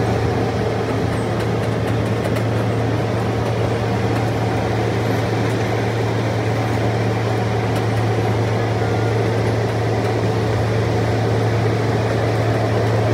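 Miniature park train running steadily along its track, a constant low engine drone with the rumble of the ride, heard from an open passenger car.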